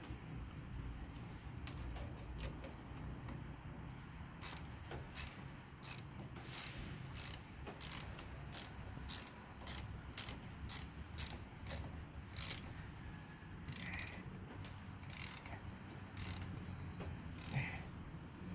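Ratchet wrench being worked in short, regular back-and-forth strokes, each stroke a brief burst of pawl clicks at roughly one every two-thirds of a second. The strokes begin a few seconds in and pause briefly about two-thirds of the way through.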